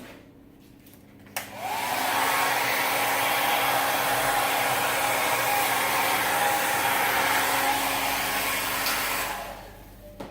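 Hair dryer clicked on about a second and a half in, its motor tone rising briefly as it spins up, then blowing steadily for about eight seconds before it is switched off and winds down near the end.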